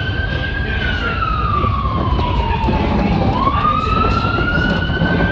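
An emergency vehicle's siren wailing: its pitch falls slowly, sweeps back up a little past halfway and begins to fall again near the end. Under it is the steady low rumble of the R40 subway train running.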